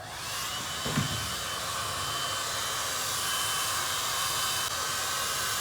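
Handheld blow dryer switched on: its motor whine rises as it spins up, then it blows steadily, used to melt the lace wig onto its glue. A brief low thump about a second in.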